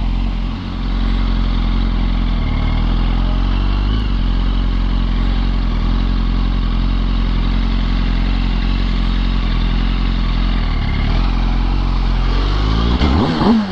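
A 2005 Yamaha R1's inline-four engine with an Akrapovic exhaust runs at a steady cruise, with a constant rush of road and wind noise. Near the end a short, louder sound with a rising and falling pitch cuts in.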